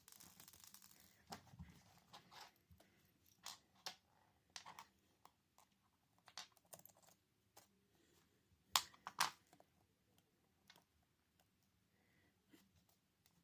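Faint, scattered clicks and taps of a smartphone's small parts being handled as a replacement motherboard is seated in the phone's frame and its cables arranged, with two sharper clicks close together about nine seconds in.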